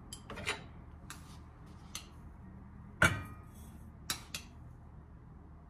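Spoon and kitchen dishes clinking and knocking as dry ingredients for a pastry cream are measured and added, a handful of separate sharp clinks, the loudest about three seconds in.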